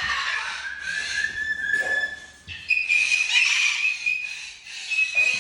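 Parrot whistling: a long held note, then a higher held note starting about two and a half seconds in.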